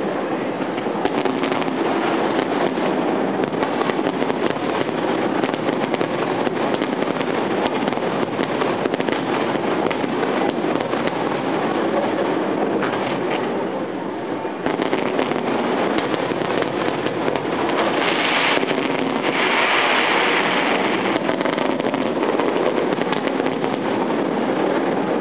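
Fireworks finale: a dense, unbroken barrage of explosions and crackling, many bursts overlapping one another, dipping briefly about halfway through.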